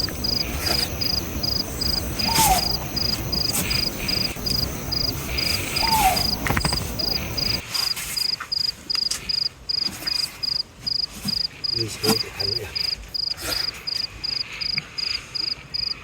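Crickets chirping in a steady high-pitched pulse, about three chirps a second. A low background rumble cuts off suddenly about halfway through, leaving the chirping more exposed.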